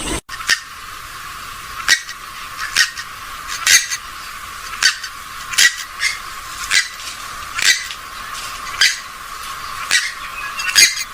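A rail-family waterbird giving short, sharp single calls, about a dozen of them at roughly one a second, over a steady hiss.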